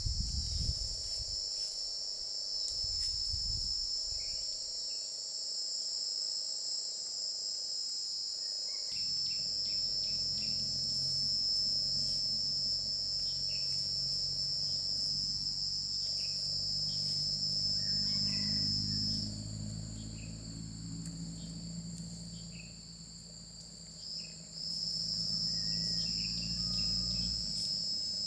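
Steady high-pitched buzzing of an insect chorus in a pine wood. Part of the chorus falls away for a few seconds after the middle and then comes back.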